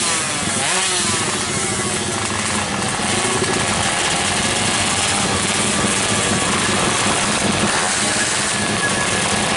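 Two-stroke 116 cc underbone drag bikes revving hard at the start line, their engine pitch repeatedly sweeping up and down.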